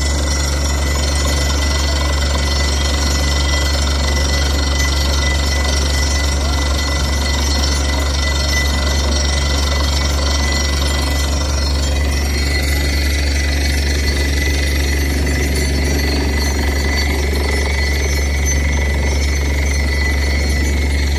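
Truck-mounted borewell drilling rig running while it drills a bore, a loud, steady, unbroken machine noise with a strong low hum and a thin high whine.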